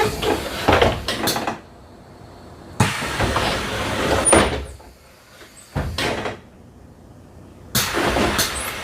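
Passenger doors of an older Mercedes-Benz Citaro city bus working. Several loud stretches of door noise start suddenly, with quieter gaps between them.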